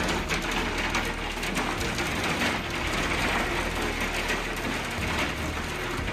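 Hailstorm: hailstones pelting down in a dense clatter of many small impacts on hard surfaces.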